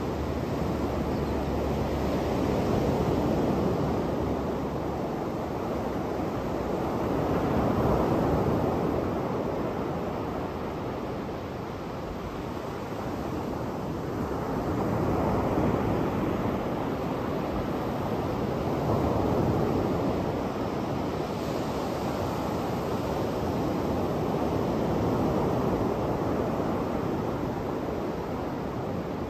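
Sea surf breaking and washing up a sandy beach, a steady rush of water that swells and eases every few seconds as each wave comes in.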